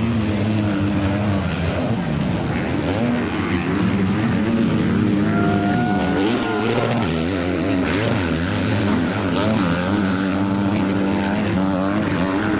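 Several off-road motorcycle engines revving unevenly, rising and falling in overlapping pitches, as the bikes struggle to climb out of deep mud ruts.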